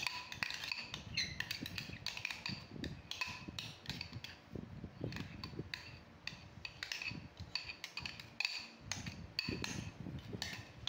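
A metal spoon scraping and clinking against a ceramic bowl as a thick cream cheese mixture is scooped out onto biscuits, with repeated short clicks and light ringing knocks.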